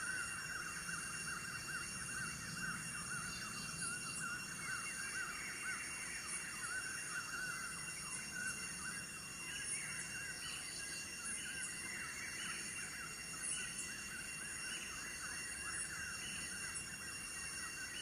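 Steady high-pitched insect drone with several unbroken shrill tones, over a dense chorus of rapid chirping.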